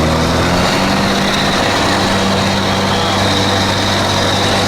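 Vehicle engine and road noise while driving; the engine's pitch drops in the first second as it slows, then holds steady, with a faint high whine above it.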